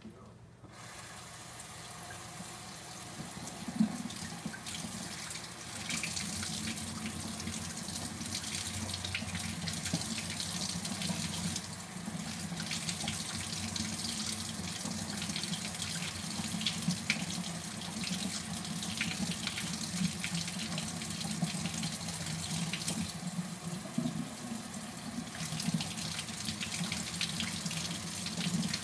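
Kitchen faucet running hot water into the sink, turned on about a second in and left flowing so the chorizo fat doesn't clog the drain, with a few sharp clinks over it.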